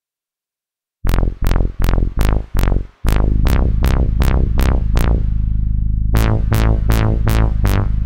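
ReFX Nexus 4 software synthesizer playing its 'Academy C' arpeggio preset: short plucked notes about three a second, starting about a second in. A sustained bass joins about three seconds in, under the repeating pattern.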